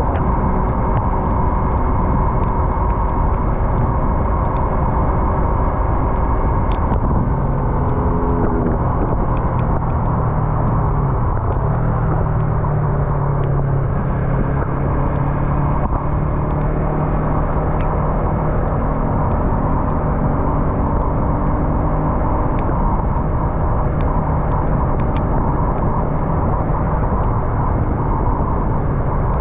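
Yamaha MT-03 motorcycle engine running under way, heard from the rider's position over a steady road and wind noise. The engine note shifts about eight seconds in, then settles into a steady lower tone from about twelve seconds in.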